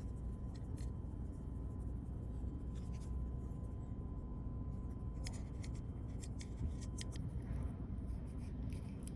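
Small scratching and clicking of a hand tool scraping old display adhesive off an iPhone frame, over a steady low hum.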